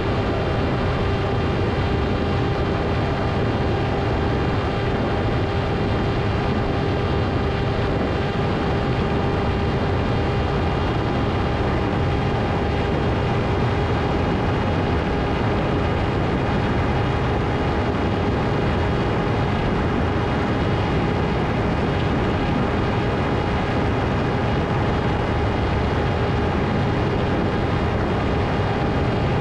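Electric motor and propeller of a Ritewing Hardcore 38 FPV flying wing running at steady throttle in flight, a constant droning tone over a heavy rush of wind noise.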